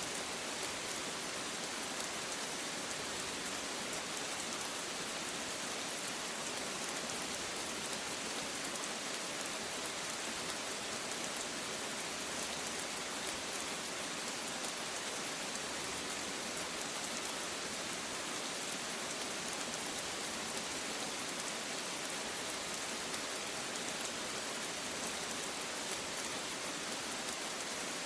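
Steady rain falling, an even hiss of many drops that neither builds nor fades.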